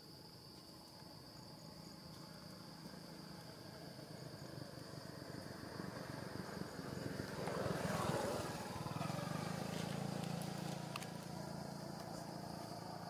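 A motor vehicle engine approaching, getting louder to a peak about eight seconds in, then easing off a little, over a steady high chirping of insects.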